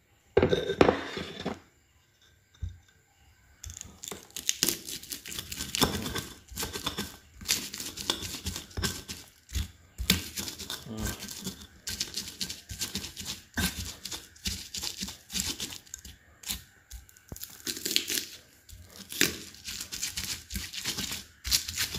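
Stone pestle crushing and grinding garlic, shallots, candlenuts and salt against a stone mortar (Indonesian ulekan and cobek): a dense, irregular run of gritty crunching and scraping strokes that starts about four seconds in.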